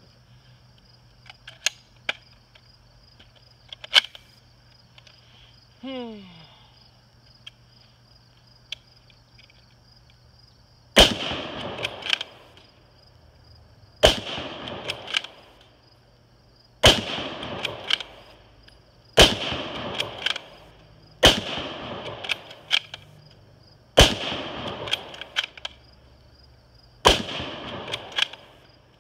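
Ruger Gunsite Scout bolt-action rifle firing .308 rounds: seven sharp shots about two to three seconds apart, each with a ringing echo. A few faint clicks come before the first shot. Insects buzz steadily throughout.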